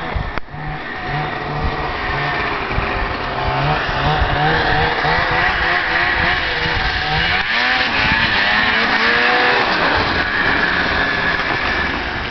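Snowmobile engine running, its pitch rising and falling again and again as the throttle is worked, growing louder a few seconds in as the sled comes closer.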